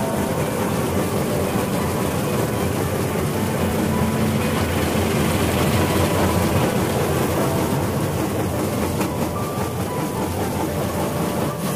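Stone-crushing plant running: a rock crusher with its big flywheel and a belt conveyor, a steady, loud, dense rumble and rattle of machinery and crushed stone.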